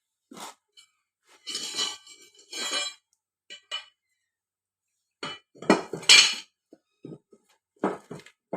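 Steel mower blades and a spanner clinking and clattering against the metal cutting deck as the old blades are taken off, in a series of separate metallic clanks and scrapes, the loudest about six seconds in.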